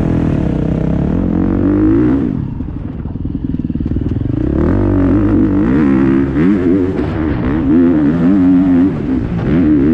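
KTM 350 XC-F four-stroke single-cylinder dirt bike engine pulling away and climbing in revs, easing off about two and a half seconds in, then revving up and down again and again as the rider works the throttle and gears.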